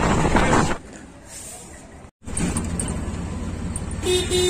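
Rushing noise of a moving train heard at an open barred carriage window, which cuts off less than a second in. After a short gap, steady street traffic with a low engine hum, and near the end a steady pitched tone sets in.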